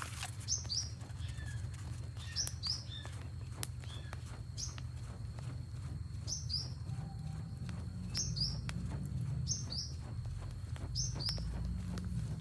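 A bird calling over and over in short, high, downward-sliding double notes, about every one to two seconds, over a steady low rumble.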